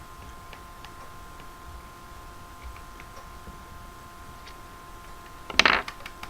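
Faint scattered clicks of small plastic and metal smartphone parts and tools being handled during a teardown, then one brief loud clatter near the end.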